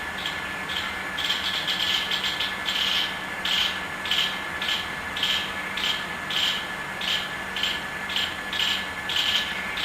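Squirrel chattering: a run of rapid, raspy calls repeating about twice a second, coming faster and closer together in the first few seconds.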